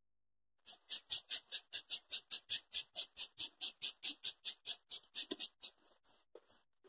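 A small paint applicator is rubbed over an EVA foam petal in quick, scratchy strokes, about four a second, to shade it with red acrylic paint. The strokes thin out to a few faint ones near the end.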